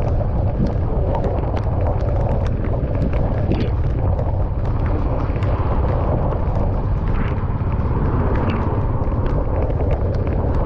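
A car driving in the rain: a steady low road rumble and hiss of tyres on the wet road, with scattered light ticks throughout.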